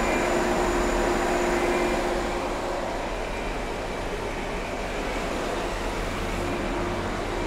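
Jaguar XK straight-six engine idling fast and steadily just after a cold start, its idle set too high.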